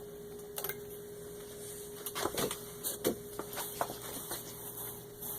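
A few scattered light clicks and knocks from the Singer sewing machine and the stitched denim being handled, over a faint steady hum; the machine is not running.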